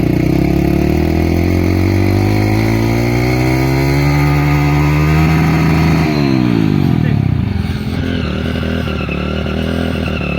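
Motorcycle engine revving, its pitch climbing steadily for about six seconds and then falling away quickly as the throttle closes.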